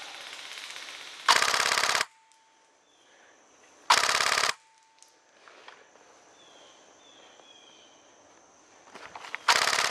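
Airsoft gun firing rapid full-auto bursts, three in all: a short one about a second in, another about four seconds in, and a longer one starting near the end.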